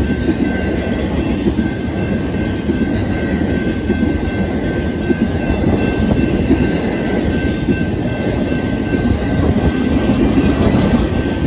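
Intermodal freight train of highway trailers on flatcars rolling past: a steady loud rumble and clatter of wheels on rail, with a faint steady high whine above it.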